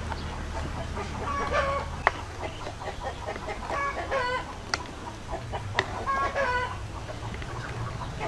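Chickens clucking in several short runs of calls, with a few sharp metal clinks from a ladle.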